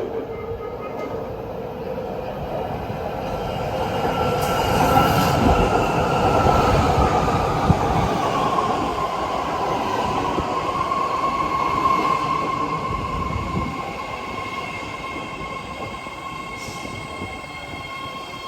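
BART Fleet of the Future train pulling into the station: a rumble of wheels on rail that swells and then fades, with a whine that falls in pitch as the train slows and then holds steady with a higher steady tone above it.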